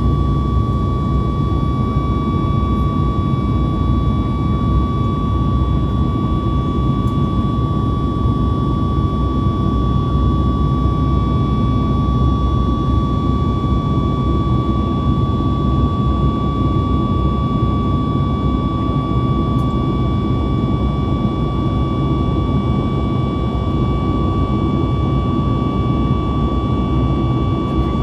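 Cabin noise of a Boeing 737 MAX 8 in flight: a steady rumbling rush of engine and airflow with a constant high whine over it, unchanging throughout.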